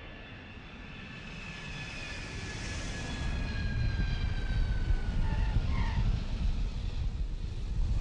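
A passing engine: a deep rumble that grows steadily louder, with several whining tones above it gliding slowly downward in pitch.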